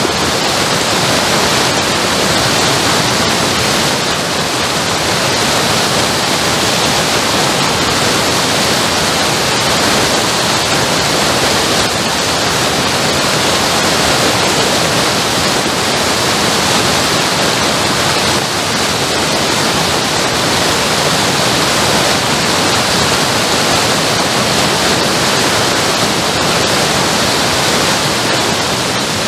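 Water from a mill race pouring out of an open wooden sluice gate and cascading down a steep bank: a loud, steady rush of falling water.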